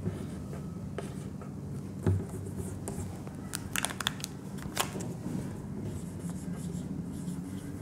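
Marker pen scratching and squeaking on a whiteboard in short strokes, a cluster of strokes about three and a half to four seconds in and another near five seconds, over a low steady room hum.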